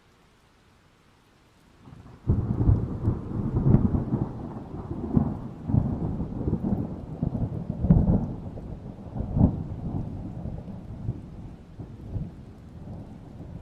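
Thunder: after a near-quiet start, a clap breaks in about two seconds in and rolls on as a long low rumble with repeated cracks and swells, slowly easing off.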